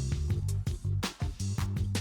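Background music with a steady beat: bass, guitar and drums.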